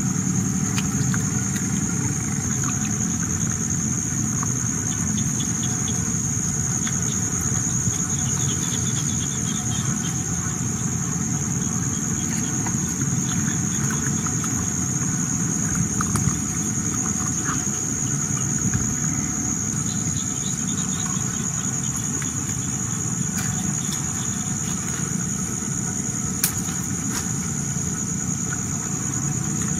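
Forest insects droning: a steady high-pitched insect whine with a few short chirping trills, over a low steady rumble.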